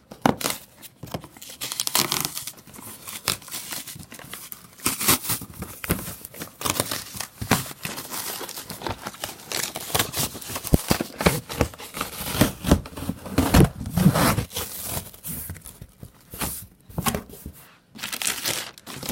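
Cardboard and plastic packaging of a vacuum cleaner box being torn open and crinkled by hand, in an irregular run of rustles, tears and crackles with a few sharper knocks.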